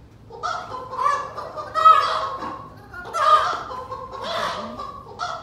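A person's wordless vocal cries, about five loud honking bursts in a row, each under a second long.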